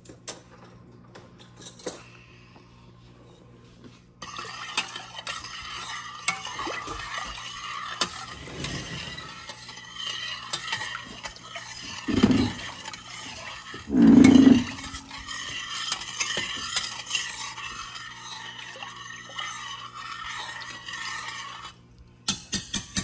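A metal spoon stirring and scraping in a stainless steel saucepan of spiced milk, with many small clinks against the pot and two loud thuds around the middle. A few sharp clinks come near the end.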